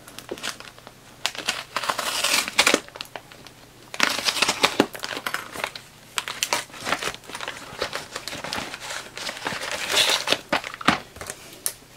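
Plastic courier mailer and its cardboard packing crinkling, rustling and tearing as the parcel is pulled open by hand. The sound comes in irregular bursts with sharp crackles, loudest a couple of seconds in and again near the end.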